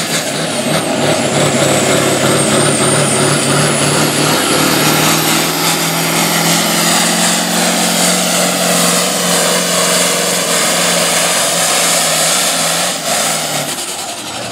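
Oliver farm tractor's engine running flat out under full load as it drags a weight-transfer sled, with a high whine that climbs over the first several seconds and then holds. Near the end the engine drops off as the pull ends.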